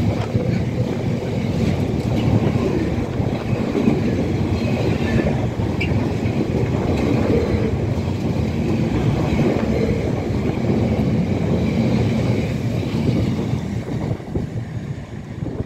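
Container wagons of an intermodal freight train passing at speed: a steady rumble and clatter of wheels on the rails. It falls away near the end as the last wagon goes by and the train draws off.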